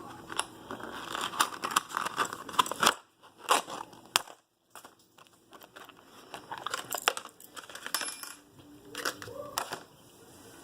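Handling of a new motorcycle disc lock and its packaging: a run of small metallic clicks and rattles mixed with rustling, pausing briefly about three seconds in before picking up again.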